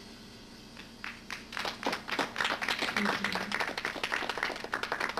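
Audience applause, starting as scattered claps about a second in and building quickly to steady clapping.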